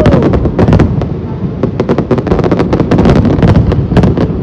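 Loud fireworks display: a dense barrage of shell bursts and crackle, several bangs a second over a continuous rumble.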